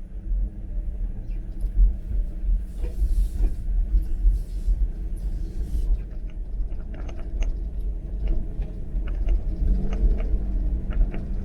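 A motor vehicle's engine running with a steady low rumble, with scattered small ticks and rattles over it.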